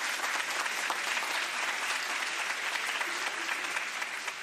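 Applause: steady clapping from a group of hands, fading away near the end.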